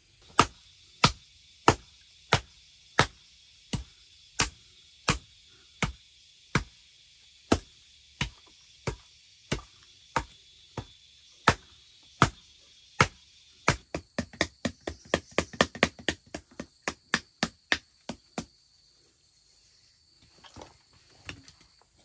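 Wooden tamper ramming earth into a wooden plank form, a steady run of sharp thuds about one and a half a second that quickens to about three a second two-thirds of the way in, then stops a few seconds before the end. Insects trill steadily underneath.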